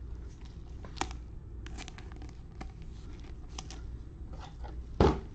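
Trading cards handled and flipped through by gloved hands: scattered soft rustles, slides and small clicks of card stock, with one louder knock about five seconds in.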